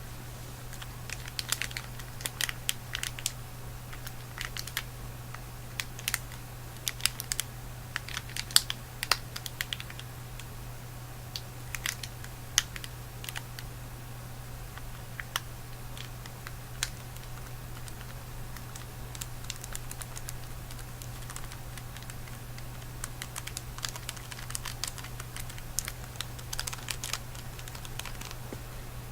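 Scattered light clicks and taps coming in irregular clusters, over a steady low hum.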